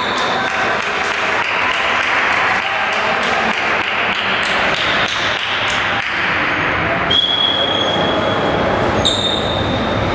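Tchoukball game play in a sports hall: a steady run of sharp knocks and taps from the ball and players over constant hall noise. Brief high squeaks sound a little past halfway and again near the end.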